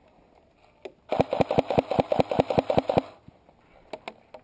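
An airsoft electric rifle firing a rapid burst of about a dozen shots, roughly seven a second, for about two seconds. A few sharp clicks follow near the end.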